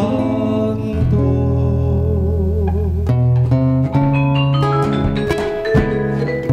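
Small acoustic band playing live: an acoustic guitar picks a melody of short plucked notes over double bass. In the first half a long held note with vibrato sounds, then fades.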